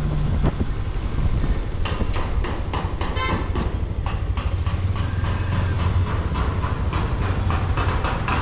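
Bajaj Avenger cruiser motorcycle's single-cylinder engine running at low speed as the bike rolls along, a steady low throb with closely spaced pulses.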